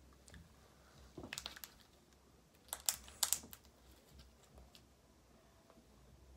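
Slime being stretched and pulled, giving two short runs of sticky clicks and crackles, about a second in and again around three seconds in.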